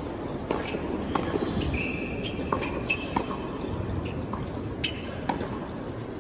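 Tennis warm-up rally on a hard court: sharp racket strikes and ball bounces at an uneven pace, with a few short high squeaks from shoes on the court, over a murmuring crowd.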